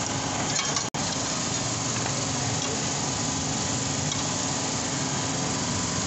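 Steady mechanical hum with an even hiss, cutting out for an instant about a second in.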